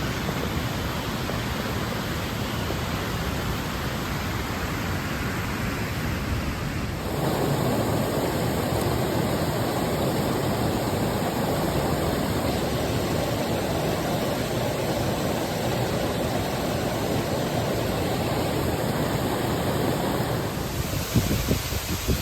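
Waterfall, a steady even rush of falling water; about seven seconds in it becomes louder and fuller in the low end. A few uneven bumps break in near the end.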